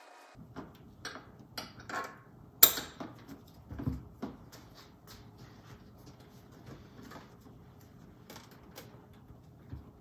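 Metal clicks and knocks of car-seat hardware being handled as the top tether hook is fitted to the vehicle's tether anchor: a run of clicks over the first few seconds with one sharp clack about two and a half seconds in, then only occasional faint ticks.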